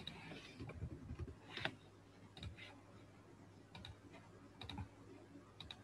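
Faint clicks of a computer mouse and keyboard: a handful of separate short clicks, roughly one a second, over a low steady hum.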